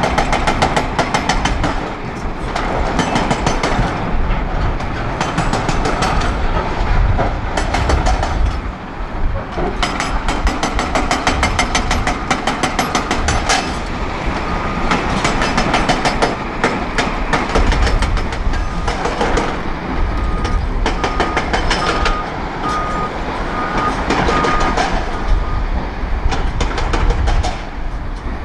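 Hydraulic breaker on a Volvo EC380D excavator hammering rock: rapid, rattling blows in several bursts with short pauses, over the excavator's running diesel engine. A row of short high beeps sounds through the middle stretch.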